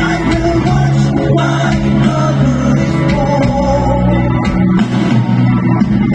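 Power metal band playing live through a festival PA: electric guitars and bass over drums, heard loud from the crowd.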